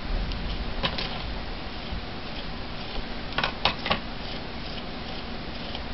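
Metal palette knife clicking and scraping against a plastic stencil while spreading paste: a single sharp click about a second in, then three quick clicks around three and a half seconds in, over a steady background hiss.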